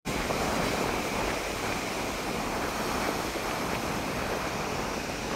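Sea surf: waves breaking and washing in as a steady rush of noise.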